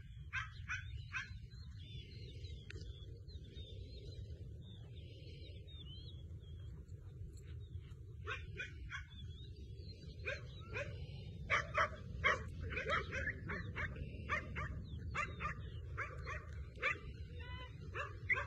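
A dog barking and yipping in short, repeated calls, which come thicker and louder in the second half. Under it runs a steady rumble of wind on the microphone.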